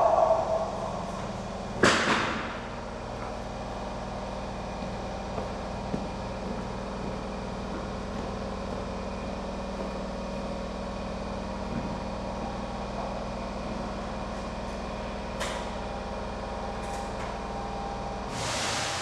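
Stationary Nagoya subway 2000-series electric train humming steadily at the platform, with a sharp burst of compressed air hissing about two seconds in and a longer hiss near the end. A short tone sounds at the very start.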